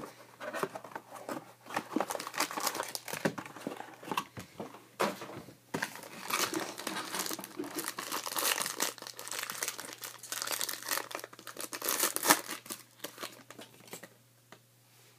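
Foil wrapper of a trading-card pack crinkling and tearing as it is pulled open by hand, with rustling handling of the cardboard box; the noise stops about a second before the end.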